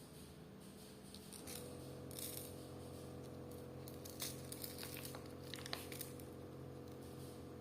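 Faint clicks and light knocks, as from handling a metal toy pistol, spread over a few seconds. Beneath them a steady hum starts about a second and a half in.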